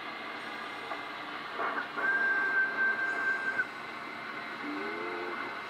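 HF transceiver receiving on the 20 m band at 14.022 MHz: a steady hiss of band noise, with a single steady beat tone from a carrier held for about a second and a half, starting about two seconds in. A fainter, lower tone comes in near the end.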